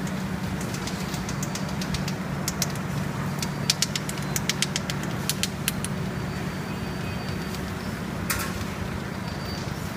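Kraft paper bubble mailer bag making machine running with a steady hum, and scattered sharp clicks: a quick run of them a few seconds in and one louder click near the end.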